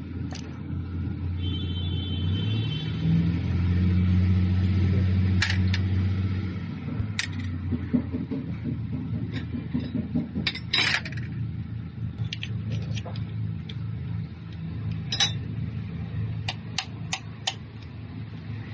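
Diesel engine running: revved up about three seconds in, held for a few seconds, then let back down to idle, with scattered sharp clicks and knocks over it.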